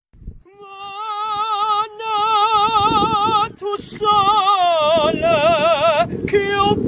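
Music with a singing voice holding long notes with heavy vibrato, the phrases broken by short pauses.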